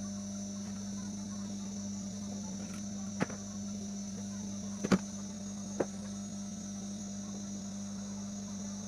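Steady low electrical hum with a high whine, broken by three small sharp clicks or taps, the loudest about five seconds in.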